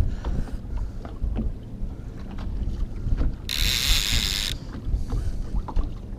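Wind buffeting the microphone and water slapping against the boat hull, with faint mechanical ticks from a fishing reel. A sharp burst of hiss lasts about a second near the middle.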